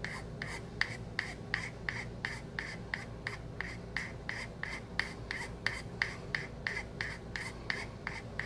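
Flat metal hand file rasping across the side of a briar pipe bowl in short, even strokes, about three a second, each pushed one way and then lifted off, shaping the bowl.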